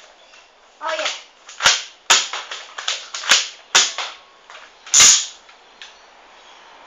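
X-Shot foam-dart toy shotgun being flip-cocked and fired: a string of sharp plastic clacks and snaps, about half a dozen, the loudest about five seconds in.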